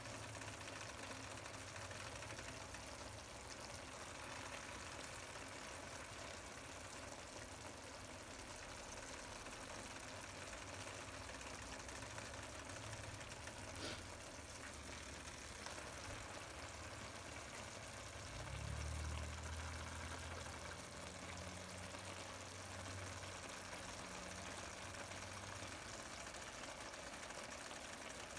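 Faint steady hum and hiss, the low hum swelling for a couple of seconds about two-thirds of the way through.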